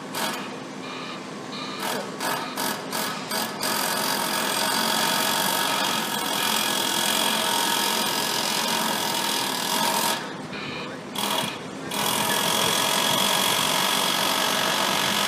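Comeng electric suburban train approaching the platform: a steady mechanical running noise with several whining tones, settling into an even level about four seconds in.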